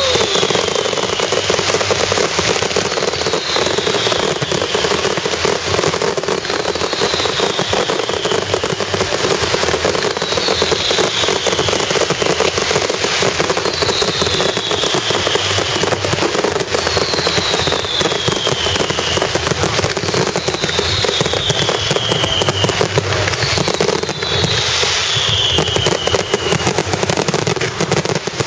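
Fireworks display finale: a dense, continuous barrage of bangs and crackling, with a whistle falling in pitch about every three and a half seconds, eight times in all.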